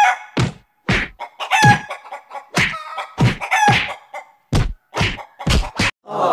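Chickens squawking and clucking over a quick run of about a dozen sharp thuds, roughly two a second.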